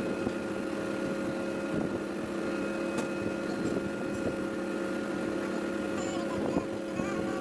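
A steady, even machine hum with several fixed pitches, and a few faint clicks.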